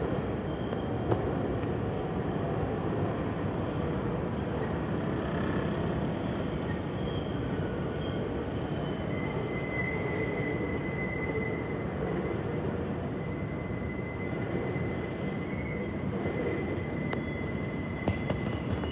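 New York City subway train running on steel rails, a steady rumble of wheels and cars, with a faint high wheel squeal held from about nine seconds in until near the end.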